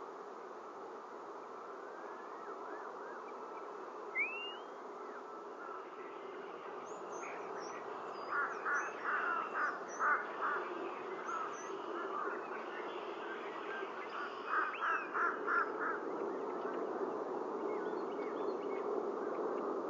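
European starlings whistling and chirping: one rising whistle about four seconds in, thin high whistles, and two bouts of rapid chirps at about five a second, the second near the end. Under them runs a steady buzzing hiss.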